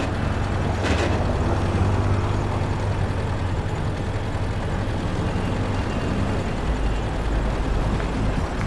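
Motor vehicle driving on a paved road, heard from inside a moving vehicle: a steady low engine hum with road noise, the hum dropping lower about two-thirds of the way through.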